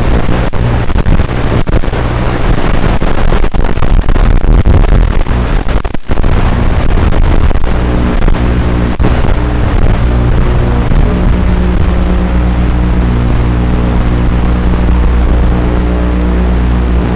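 Micro FPV racing quadcopter's motors and propellers buzzing continuously in flight, the pitch shifting with throttle, with a brief drop-out about six seconds in.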